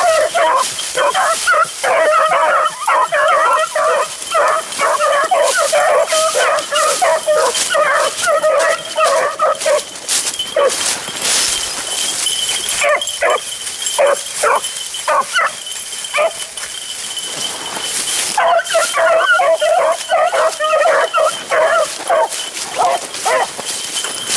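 Pack of beagles baying as they run a rabbit, several hounds crying at once. The chorus thins to scattered single barks and yips about ten seconds in, then swells again near the end.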